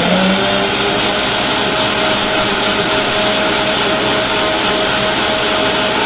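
Electric mixer-grinder motor running at speed, blending watermelon chunks into juice: a loud, steady whir whose pitch rises slightly in the first half second, then holds.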